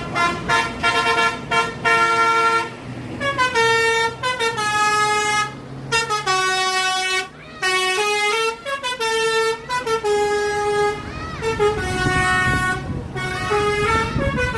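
Indonesian bus 'telolet basuri' musical horn playing a melody: quick short toots for the first two seconds or so, then a run of longer notes stepping up and down in pitch, with brief breaks between phrases.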